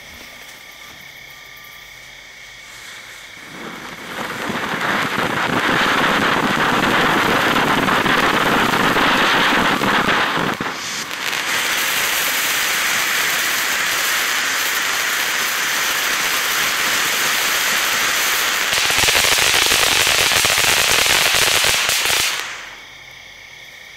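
Winda Fireworks Explosso coffee-cup ground fountain igniting a few seconds in and spraying sparks with a loud, steady rushing hiss. About ten seconds in it falls back briefly and resumes brighter, swells again later, and dies away near the end as it burns out.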